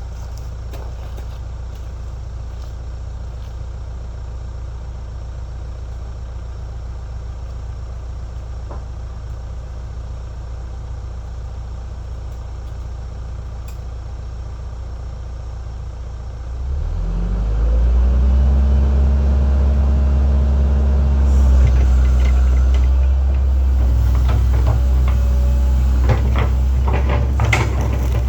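Link-Belt 2700 hydraulic excavator's diesel engine idling steadily, then throttled up about two-thirds of the way through to a higher, louder steady run for digging. Scattered knocks and clatter come over the engine near the end.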